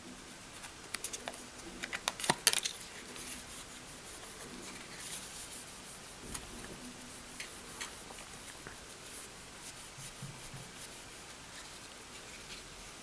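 Faint scraping and clicking of a card squeegee pressed over a phone's screen protector to push out small bubbles, with a few sharp clicks about two seconds in, then soft rubbing of a cloth over the screen.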